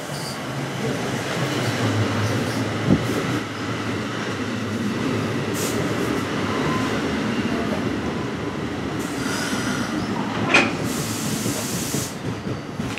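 New Jersey Transit commuter train of stainless-steel bilevel coaches rolling past into the station, with steady wheel and running noise on the rails. There is a sharp metallic clank about ten and a half seconds in, followed by a short hiss.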